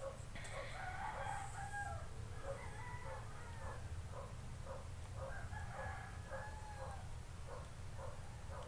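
A rooster crowing, long drawn-out crows heard twice, over a steady low hum.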